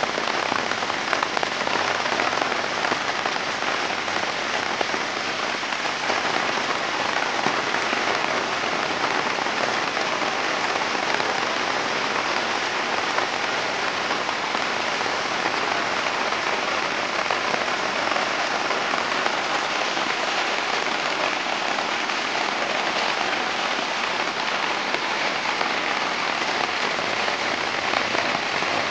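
Heavy rain falling steadily on a flooded road: an even, unbroken hiss of rain on running water and wet ground.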